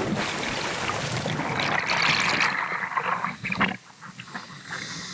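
Rushing, splashing water of a waterfall rock slide as a person goes down it; the rush fades and dips briefly about four seconds in.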